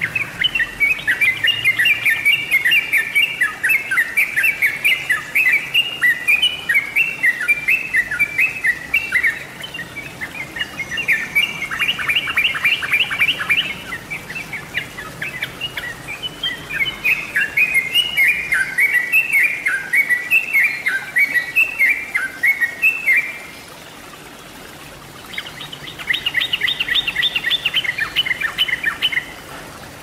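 Yellow-vented bulbul (cucak trucuk) song: long runs of quick, bubbly chattering phrases, twice giving way to a fast rattling trill. There is a pause of about two seconds shortly before the last trill.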